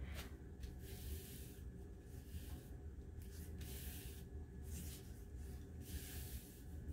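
Hands smoothing and pressing a strip of lace down onto a glued paper page: faint, soft swishing rubs about once a second over a low steady hum.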